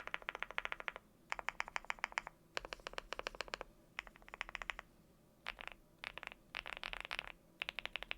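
Fast typing on a Leobog Hi75 mechanical keyboard with lubed Gateron Smoothie linear switches and Cherry-profile keycaps: quick runs of keystrokes, many a second, in about eight bursts with short pauses between.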